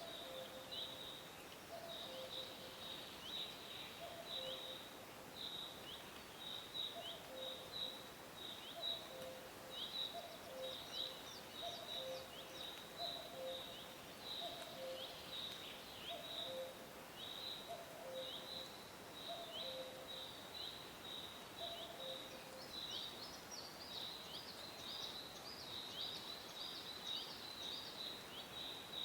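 A cuckoo calling its two-note 'cuck-oo', higher note then lower, over and over about every second or so, falling silent a little past twenty seconds in. Behind it, a steady chorus of high, quick chirps from other small birds.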